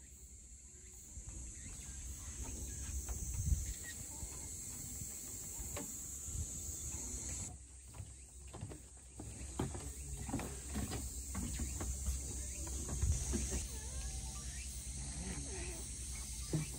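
Outdoor ambience: a steady high insect drone with scattered light clicks and taps, the sharpest about three and a half seconds in.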